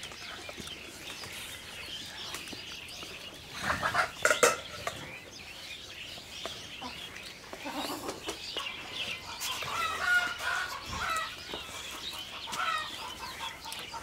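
Chickens clucking, with a louder burst about four seconds in and a run of short, quick clucks through the second half.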